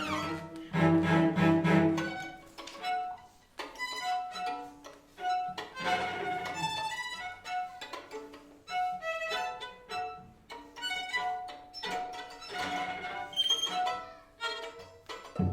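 String quartet playing contemporary chamber music: bowed violins and cello in short, separated notes, with a louder low repeated chord about a second in, then lighter detached figures.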